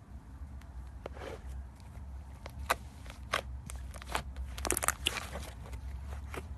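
Slime being squeezed and pressed by hand, giving irregular sharp crackling pops and clicks, thickest about four to five seconds in, over a low steady hum.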